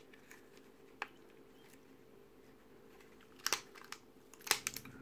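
Light clicks and taps of plastic model-kit parts being handled and pressed together in latex-gloved hands: a single click about a second in, a quick cluster of clicks a little past the middle and a few more near the end, over a faint steady hum.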